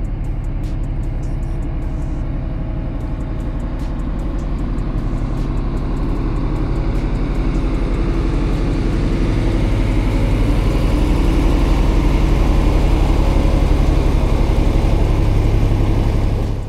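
An engine running steadily with a deep hum, growing louder through the middle of the stretch and then cutting off suddenly.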